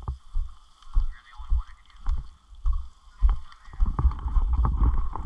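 Footsteps through dry grass with gear jostling on the walker's body, a low thump about twice a second. The thumps come faster and louder in the last second or so as the pace quickens.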